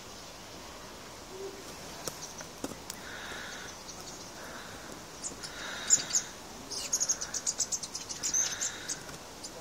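A bird calling over and over, a soft call about every second and a half. Partway through, a quick run of high ticks joins it.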